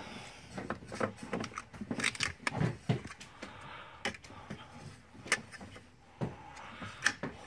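Irregular clicks, taps and knocks of small fittings being handled while Teflon tape is wrapped onto the pressure switch's threaded fitting. They come thickly at first, then as a few single sharper knocks near the end.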